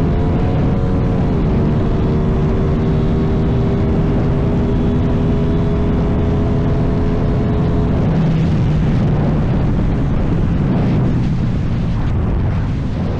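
Aprilia Tuono 660's parallel-twin engine running through an aftermarket Chinese exhaust under way. The pitch drops about a second and a half in, then holds a steady tone. After about eight seconds it turns rougher and less even, easing off near the end.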